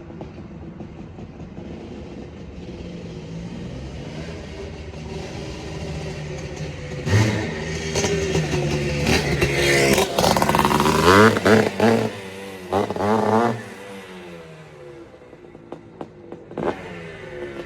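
1979 Honda CR250's single-cylinder two-stroke engine running, then revved hard several times about halfway through, its pitch climbing and dropping back, before settling again with one short blip near the end.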